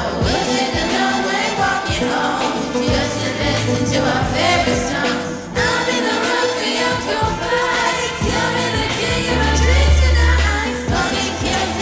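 Background pop song with singing and a steady bass line.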